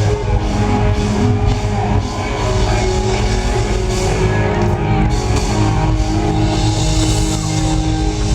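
Live R&B band playing through a loud PA: a heavy low end with held chords over it.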